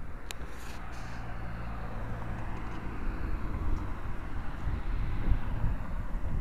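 Road vehicle driving: a steady low engine hum with road and wind noise, and two brief clicks in the first second.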